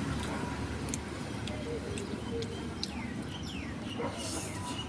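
Birds calling outdoors: several short chirps that fall steeply in pitch, with a few faint lower notes, over steady background noise.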